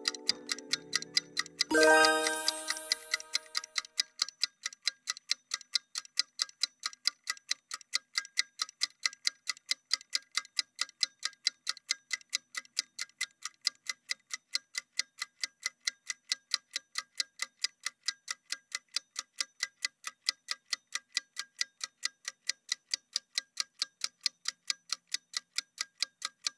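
A ticking clock sound effect, steady at about two ticks a second, counting down a workout rest period. About two seconds in, a single ringing tone sounds and dies away.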